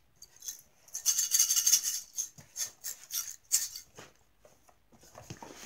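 A small owl figurine with something loose inside, shaken as a rattle: a quick run of rattling for about a second, then a string of separate short shakes. Fainter rustling near the end.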